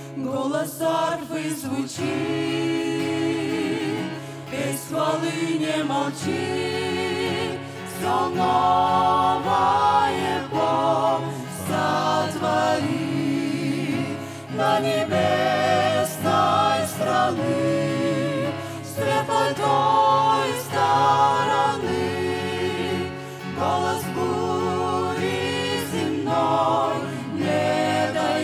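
A small mixed group of women's and men's voices singing a gospel song in harmony through microphones, in phrases of a few seconds each.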